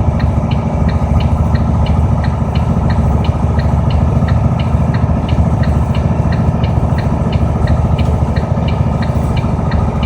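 Steady engine and road rumble heard inside a vehicle's cabin, with a small, even ticking about three times a second.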